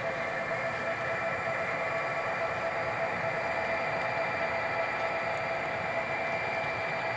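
Model railroad diesel locomotives running past on layout track: a steady whirring hum of motors and wheels, with a few steady tones.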